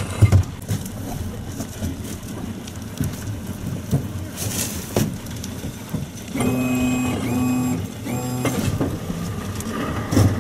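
Outboard motors running low, with knocks and clanks on the aluminium boats. About two-thirds of the way through, a steady pitched tone sounds three times in a row, the loudest thing heard.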